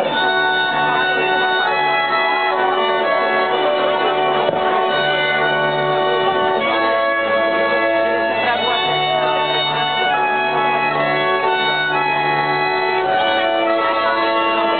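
Instrumental Slovak folk dance music playing steadily, with melody over a bass line that changes notes every second or two.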